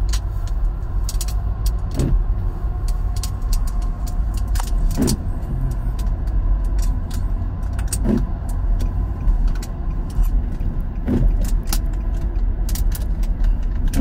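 Car driving on a highway, heard from inside the cabin: steady road and tyre rumble, with a recurring swish about every three seconds and scattered light ticks.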